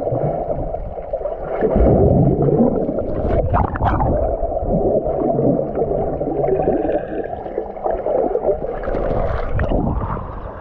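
Muffled underwater rush and gurgle of water around a submerged action camera as snorkelers swim and kick with fins, the sound opening up as the camera comes back to the surface near the end.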